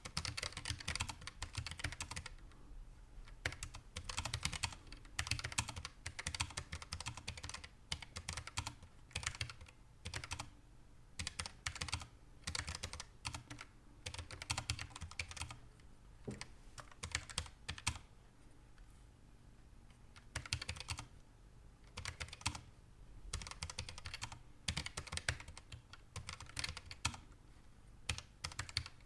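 Typing on a Keychron K1 low-profile mechanical keyboard with Gateron Brown switches: quick runs of keystroke clicks in bursts, broken by short pauses. The sound is not loud.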